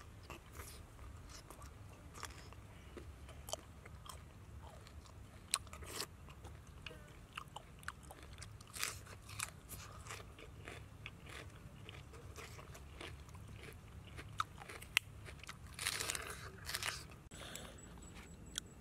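A person chewing and biting small whole raw fish, with irregular crunches that come thicker near the end, over a low steady hum.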